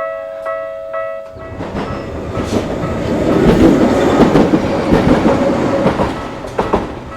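A Japanese level-crossing warning bell rings about twice a second. A Tokyu Setagaya Line train then takes over as it passes over the crossing, its wheels rumbling and clicking over the rails, loudest about four to five seconds in. The bell comes through faintly again at the very end.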